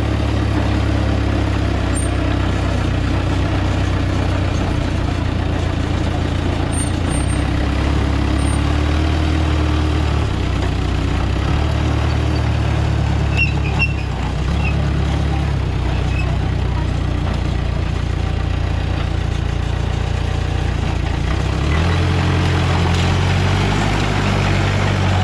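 Case 450C crawler dozer's diesel engine running steadily as the machine is operated and driven, its note changing from time to time and stepping up about 21 seconds in.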